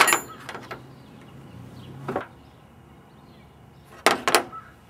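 Metal hand tools (wrenches and sockets) clinking against each other and the sheet metal at the front of the engine bay as they are picked up and set down: a sharp clink at the start, a few lighter taps after it, one near two seconds and two quick clinks about four seconds in.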